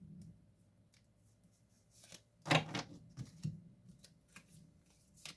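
Tarot cards being shuffled and handled: soft scattered card rustles and clicks, with one louder rustle about halfway through.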